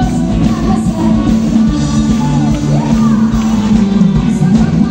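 Live band playing rock-style praise music through the stage sound system, with singing.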